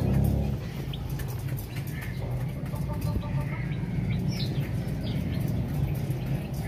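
Young aseel chickens pecking grain from a metal bowl: many quick sharp pecks, with scattered short chirps, including one falling chirp about four seconds in, and a brief run of short calls a few seconds in, over a steady low hum.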